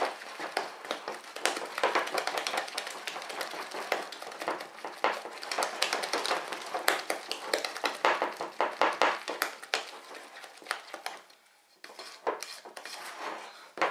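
A flexible spatula is beating thick macaron batter in a glass bowl, in rapid scraping, slapping strokes several times a second, with a short pause about eleven seconds in. This is macaronage: the meringue is being beaten firmly into the almond-and-sugar mixture to get a smooth batter.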